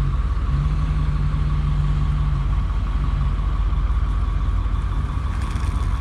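Vehicle engine running steadily at low speed, close by, as it creeps up bumper to bumper against a bus to push it.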